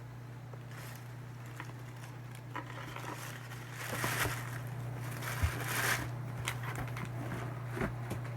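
Shoe packaging being handled during an unboxing: rustling and crinkling with a few light clicks and taps, thickest about halfway through, over a steady low hum.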